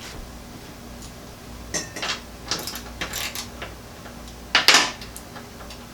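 Scattered metal clinks and taps of a ratchet, socket and bolt being handled as a half-inch bolt is taken out of a mower deck's steel shield, with the loudest clatter, two quick clinks, about four and a half seconds in.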